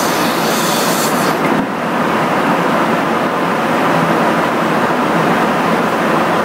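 Steady rushing roar of airflow and jet engines heard from inside a KC-135 tanker's boom operator compartment while the boom is connected to an F-15 for in-flight refueling. An extra high hiss rides on top for about the first second and a half, then fades.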